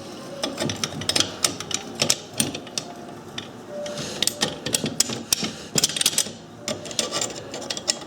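Irregular light clicks and clinks of small metal parts being handled, as a bolt is fitted through the parts of a bandsaw-blade soldering jig.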